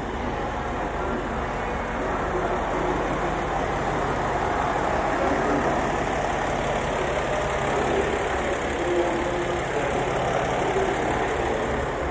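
Diesel engine of a KiHa 47-based railcar idling at the platform, a steady low hum and rumble.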